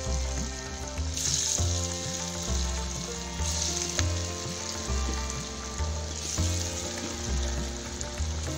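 Parippuvada lentil fritters deep-frying in a pan of hot oil: a steady sizzling bubble that swells about a second in and again around three and a half seconds. Background music with a regular bass beat plays under it.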